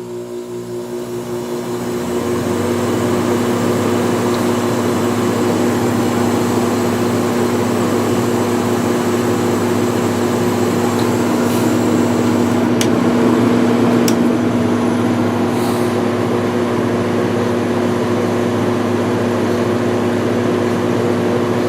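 5000 BTU Haier window air conditioner starting up: its fan and Qingan rotary compressor come up to speed over the first couple of seconds, then run steadily with a low hum under the fan's airflow. A few faint ticks come in the middle.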